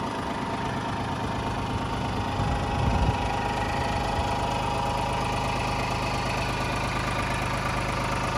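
Iseki TPC15 crawler tractor's engine running steadily at idle. Some uneven low rumbling comes in the first three seconds, then the sound settles into a steady run.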